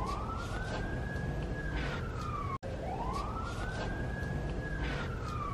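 Siren wail that climbs, holds high and slides back down, repeating about every three seconds, with a brief dead-silent break between repeats that marks a looped, edited-in clip.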